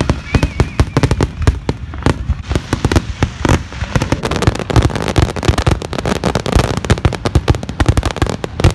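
Aerial fireworks display: a rapid, continuous barrage of shell bursts and bangs, thickening into dense crackling from about four seconds in.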